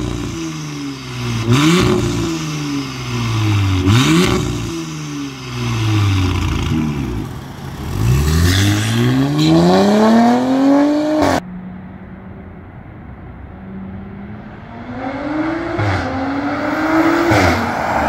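Audi S5's turbocharged 3.0-litre V6 through an FI valved catback exhaust and downpipe: three sharp rev blips in the first few seconds, then a long full-throttle pull as the car accelerates away, which cuts off suddenly. After a quieter steady stretch the engine rises again under acceleration, with a couple of sharp cracks from the exhaust near the end.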